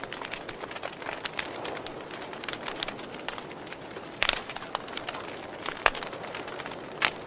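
Wood fire crackling: irregular sharp pops and snaps over a steady low rush, with louder pops about four and six seconds in.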